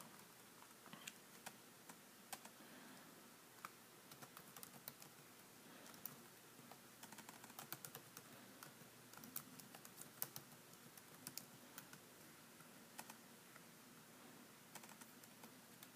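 Faint keystrokes on a computer keyboard: scattered taps, with a quicker run of typing through the middle.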